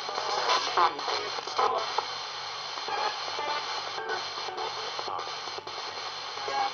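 RadioShack 20-125 radio sweeping through the FM band as a spirit box: steady static hiss chopped up as it hops from frequency to frequency, with short snatches of broadcast sound and several brief drop-outs between steps.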